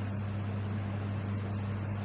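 A steady low hum with an even hiss over it, unchanging throughout; no firework bangs stand out.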